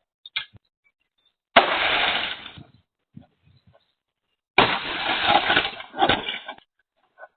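Two sudden loud crashes, picked up by a doorbell camera's microphone, the first about a second and a half in and the second a few seconds later. The second crash lasts longer and has another sharp hit near its end.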